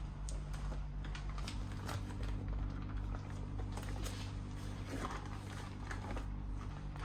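A steady low hum with many light, scattered clicks and taps over it.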